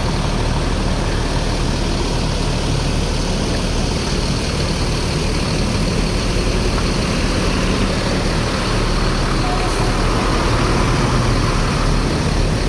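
A large bus's diesel engine idling steadily.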